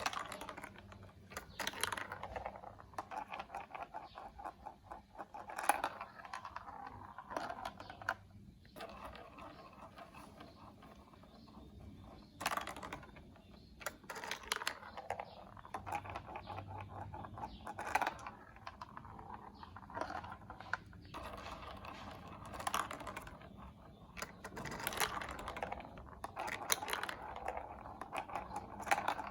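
Plastic marble run building-block pieces clicking and clattering as they are handled and fitted together, in irregular clusters of small knocks.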